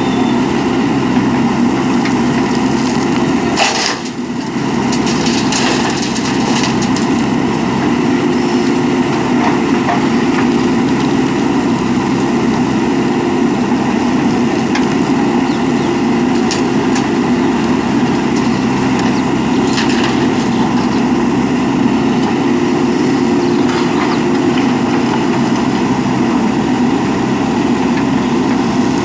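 JCB 3DX backhoe loader's diesel engine running steadily at an even pitch, with a few short knocks and clanks over it, the sharpest about four seconds in.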